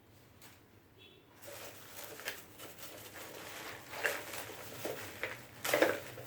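Lumps of barbecue coal clattering and rattling against each other and a kitchen bowl as they are tipped in. The clatter begins about a second and a half in, with louder bursts near four seconds and near the end.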